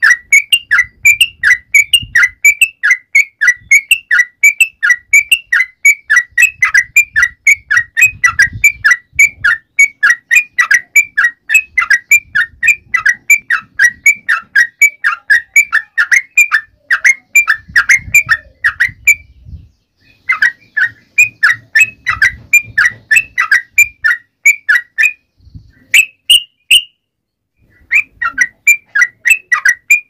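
Yellow-vented bulbul (trucukan) singing: a fast, continuous run of short, clear whistled notes, about three a second, breaking off briefly about twenty seconds in and again for a few seconds near the end.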